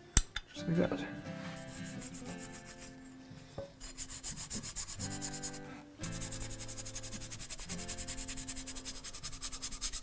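Toothbrush scrubbing the rusted steel iron of a Stanley Bedrock hand plane, rapid back-and-forth strokes that become continuous about halfway through. A sharp click right at the start, and soft background music underneath.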